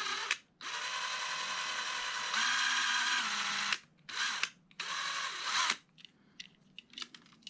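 Cordless drill with a small 5/64-inch bit running against a toy car's rivet, drilling a shallow pilot hole. One run of about three seconds that rises in pitch partway through, then two short bursts.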